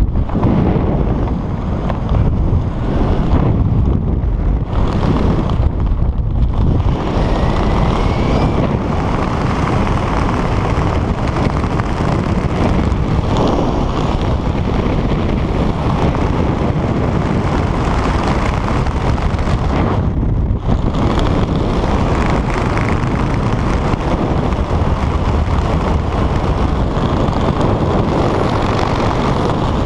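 Wind rushing over the microphone during a descent under an open parachute canopy. It is a loud, steady buffeting noise, heaviest in the low end, with a few brief lulls.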